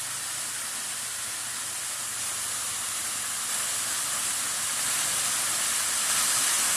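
Falling water of a waterfall rushing in a steady hiss, gradually growing louder.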